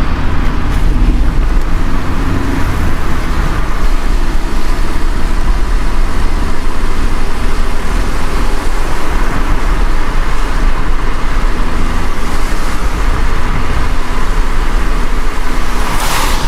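Car driving on a wet road in the rain: a steady low rumble of engine and road with an even hiss of tyres and rain, and a brief louder swish near the end.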